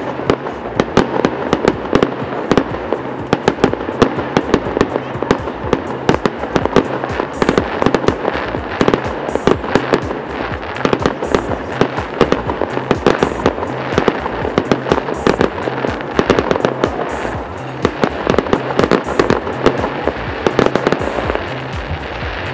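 Fireworks barrage: a dense, continuous volley of sharp bangs and crackles from many shells going off in quick succession.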